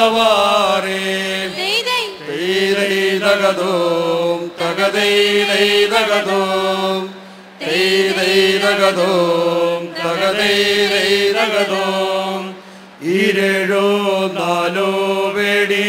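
A group of men and women chanting a traditional Malayalam song together through microphones, in long held phrases over a steady low note. There are short breaks about seven and about twelve and a half seconds in.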